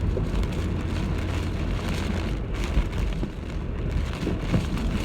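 Typhoon wind and rain: a steady, gusty roar of wind buffeting the microphone over rain noise, with two brief thumps a little before and after the middle.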